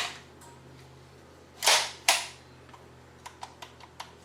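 Metal folding stock of an airsoft UZI being worked open: a sharp click, two louder clacks about two seconds in, then a run of small light clicks as the stock is wobbled on its hinge.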